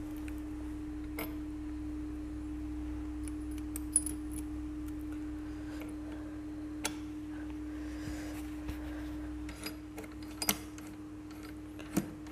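Scattered light metal clicks and clinks of engine parts and tools being handled during motorcycle engine assembly, several close together near the end, over a steady hum.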